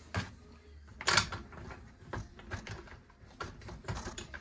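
New spark plug being screwed into a Stihl 023 C chainsaw's cylinder with a T-handle combination wrench: a string of metal clicks and knocks, the loudest about a second in.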